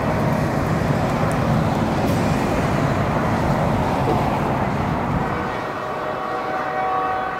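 Road traffic noise, a city bus and cars going by, mixed with the rumble of a passing freight train's diesel locomotives. The low rumble eases about five seconds in, and a faint steady tone comes in near the end.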